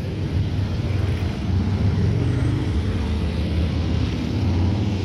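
Steady low rumble of motor traffic on a city street, with no single distinct event.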